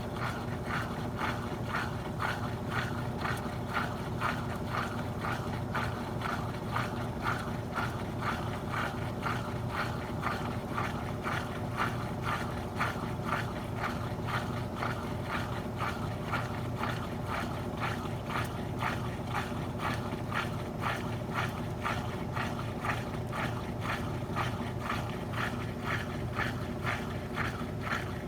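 Electrolux Turbo Economia 9 kg (LTE09) top-loading washing machine in its final spin cycle: a steady motor hum with a quick, even pulsing that holds constant.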